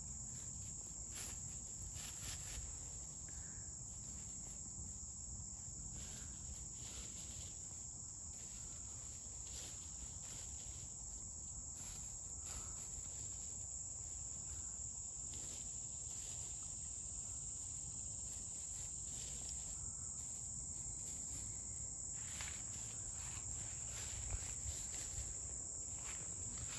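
Steady high-pitched insect chorus of crickets or similar insects, with faint crackles of hens scratching in dry leaf litter. Louder rustling and crunching of leaves and brush near the end.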